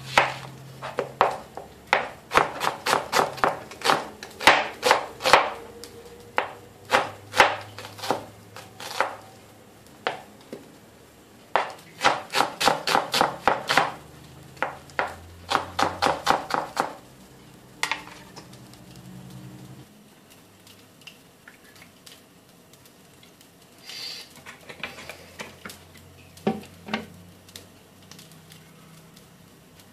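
Chef's knife slicing a red onion on a plastic cutting board: quick runs of knife strokes hitting the board, several a second, in two bursts with a short pause between, stopping about two-thirds of the way through. A few fainter knocks follow near the end.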